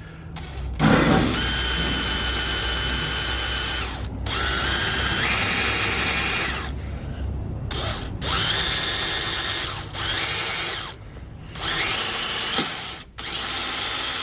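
Electric drill boring a pilot hole with a number 8 bit into a Chevy 292 cast-iron cylinder head, run in about six bursts of one to three seconds each with short pauses between.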